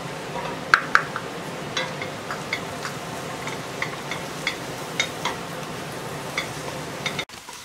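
Wooden spoon stirring flour into butter and sautéed vegetables in a stainless-steel stockpot, knocking and scraping against the pot a few times a second, over a faint sizzle as the roux begins to cook.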